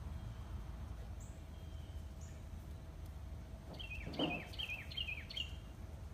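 A small bird sings a quick run of about five chirps, each falling in pitch, a little past the middle. Under it is a steady low outdoor background rumble.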